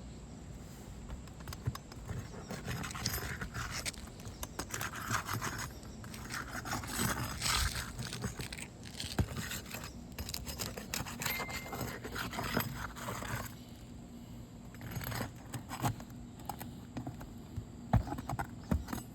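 Steel roof snake scraping and prying under shingles to work the nails loose, in irregular strokes with metal clinks and a few sharp knocks near the end.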